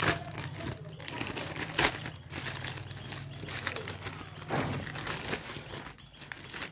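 Plastic courier mailer bag crinkling and rustling as hands handle and open it, with sharper crackles near the start and about two seconds in.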